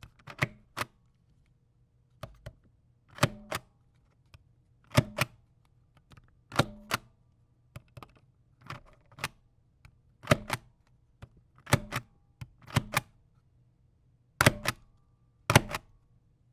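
A medium-sized hand ink stamp pressed down onto paper again and again. Each stamping gives a sharp double knock, about ten in all, one every second or two.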